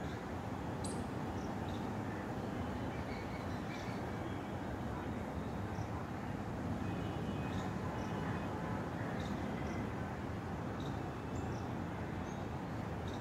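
Outdoor ambience: a steady low rumble, with short high bird chirps scattered throughout.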